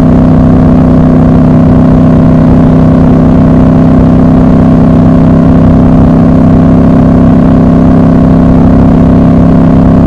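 Triumph Scrambler 1200 XC's parallel-twin engine and exhaust running at a steady highway cruise, loud and unbroken, with the engine pitch holding constant.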